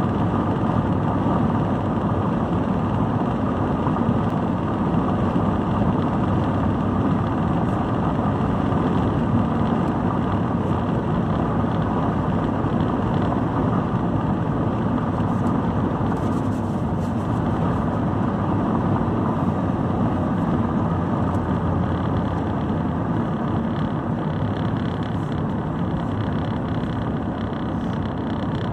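A car driving, its engine and road noise holding steady.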